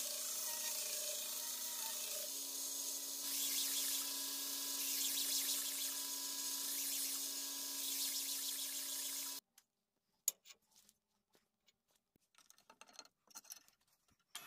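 Belt grinder running with a steel blade, cut from an old saw blade, pressed against the abrasive belt: a steady grinding hiss over the machine's hum, louder about three seconds in. It stops suddenly after about nine seconds, and a few scattered clicks and knocks follow.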